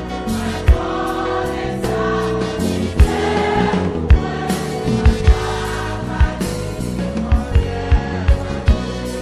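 Gospel worship song: a choir singing over held instrumental backing, with short sharp low beats now and then.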